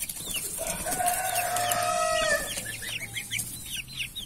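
A rooster crows once, a long call of about two seconds starting about half a second in, over the steady peeping of chicks and goslings.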